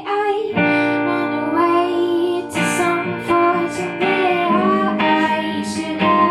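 Acoustic guitar being strummed while a young female voice sings, in a live performance of a song.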